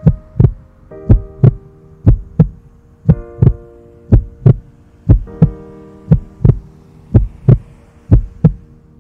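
Heartbeat sound effect: paired lub-dub thumps about once a second, over soft sustained synth chords that change every couple of seconds.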